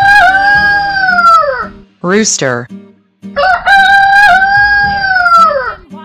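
Rooster crowing twice, each a long cock-a-doodle-doo of about two seconds that holds its pitch and then falls away at the end.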